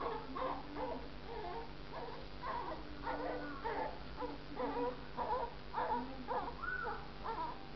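Newborn baby crying weakly in a run of short, broken cries, some rising and falling in pitch.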